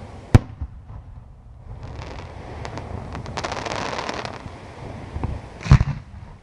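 Aerial fireworks display: a sharp shell burst about a third of a second in, then a dense spell of rapid small pops and crackling, and another loud bang near the end.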